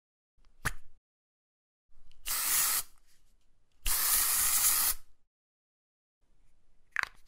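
Aerosol spray can: a sharp click, then two hissing sprays, a short one and then a longer one of about a second, and another sharp click near the end.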